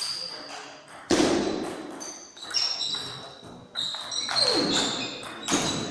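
Table tennis rally: the celluloid-type plastic ball clicking sharply off paddles and the table, several hits a second or so apart, each with a short high ring and echo in a large hall.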